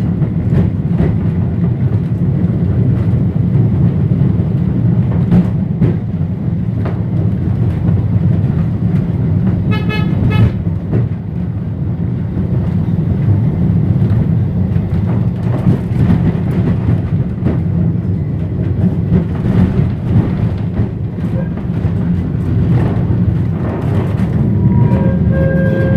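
Birkenhead Corporation Tramways tram No. 20 heard from inside its wooden saloon as it runs along the track, a steady low rumble. A short pitched signal sounds about ten seconds in, and a steady pitched tone comes in near the end.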